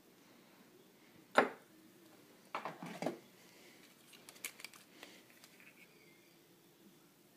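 Objects being handled on a desk: a sharp knock about a second and a half in, then a brief spell of scraping and rustling, then a few light clicks.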